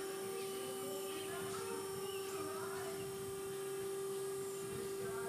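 Steady hum from the boom lift's power unit, held at one even pitch.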